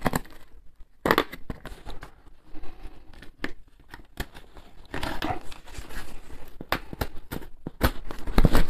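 Cardboard parcel being opened: packing tape slit and torn and the box flaps pulled open, a run of sharp crackles and tearing, rustling sounds, loudest near the end.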